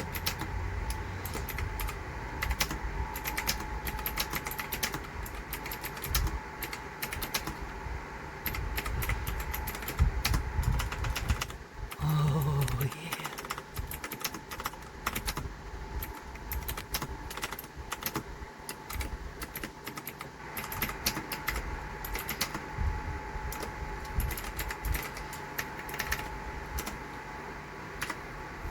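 Typing on the RK Royal Kludge S108 mechanical keyboard with clicky blue switches and round typewriter-style keycaps: a continuous, irregular clatter of key clicks.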